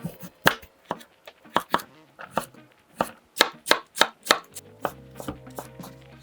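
Knife chopping vegetables on a cutting board in sharp, uneven strokes, about two or three a second. A low steady hum comes in about five seconds in.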